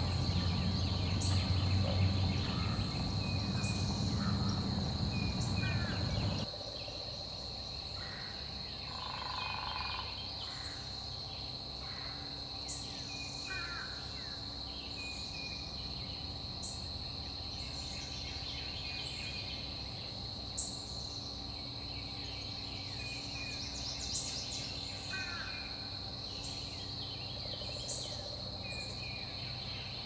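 Swamp forest ambience: a steady high-pitched insect drone with frequent short bird chirps and calls over it. A low rumble sits underneath for the first six seconds and cuts off abruptly.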